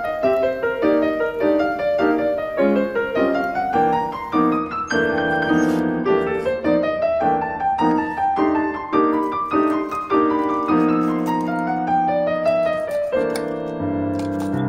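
Background piano music: a quick melody of short notes running up and down, settling into longer held chords near the end.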